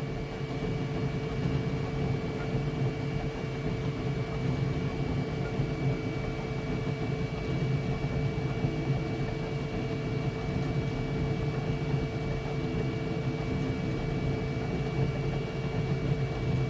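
Flashforge Adventurer 5M Pro 3D printer running mid-print: a steady hum of its fans and motors, with a few constant whining tones.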